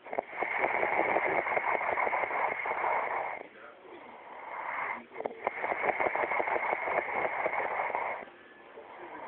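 A sleeping person snoring: two long, rattling breaths of about three seconds each, with quieter breaths between them.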